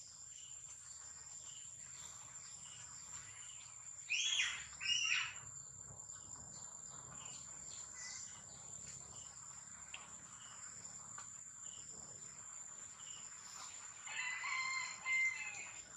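Infant long-tailed macaque crying: two short, high-pitched cries about four seconds in, and a longer wavering cry near the end, over a steady high drone of insects.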